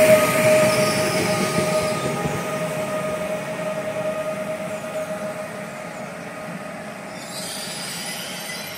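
PESA Elf (EN76) electric multiple unit drawing to a stop at a platform: a steady whine and the rolling rumble fade away over the first few seconds as the train slows. About seven seconds in, a soft hiss starts.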